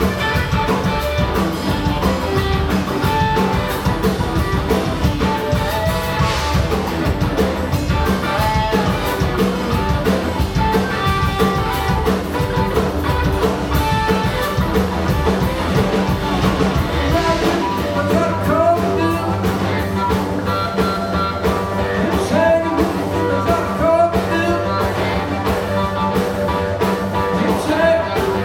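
Live blues-rock trio playing: electric guitar over electric bass and drum kit, loud and continuous, with the low end of the bass line changing about two-thirds of the way through.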